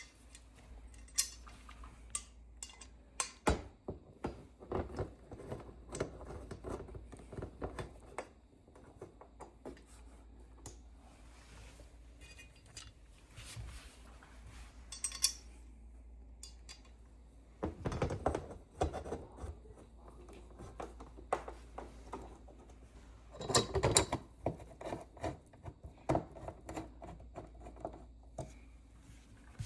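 Screws and small metal wall-mount parts clinking and clattering as they are handled and tried, in irregular bursts of sharp clicks, with the busiest clusters a few seconds in, about two-thirds of the way through and near the end.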